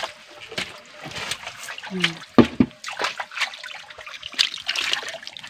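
Shallow muddy creek water splashing and sloshing as it is scooped and waded through, in a run of irregular splashes, with a brief voice about two seconds in.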